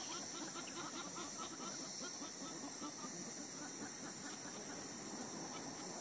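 Outdoor wildlife ambience: a steady high-pitched drone with many rapid, short chirping calls, busiest in the first couple of seconds.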